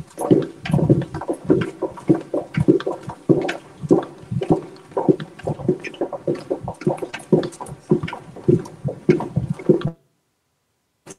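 Footsteps of several people walking quickly along a hard-floored hallway, an uneven stream of two to three steps a second, picked up close on the call's microphone. The sound cuts out to silence about ten seconds in, and a single faint click follows near the end.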